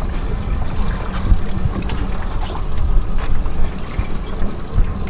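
Wind buffeting the microphone over water splashing against a boat's hull, gusty and uneven with a few short splashes.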